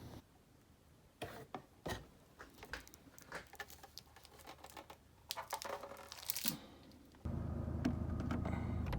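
Faint, scattered rustling and clicks, then a steady low hum with several held tones that sets in about seven seconds in.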